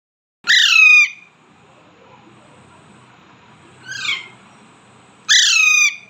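Alexandrine parakeet giving three loud, harsh calls, each about half a second long and falling in pitch. The middle call is shorter and quieter than the other two.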